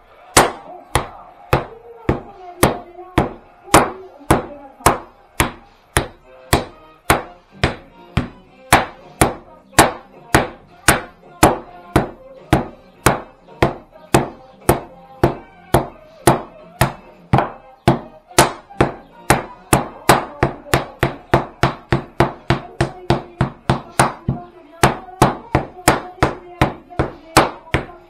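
Wooden rolling pin beating a slab of tourtière dough on the table in a steady rhythm, about two blows a second. This is one round of the twelve rounds of beating that work the dough until it stiffens.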